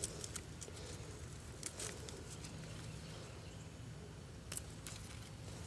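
Faint scattered clicks and crackles, louder near two seconds in and again past four seconds, over a steady low hum.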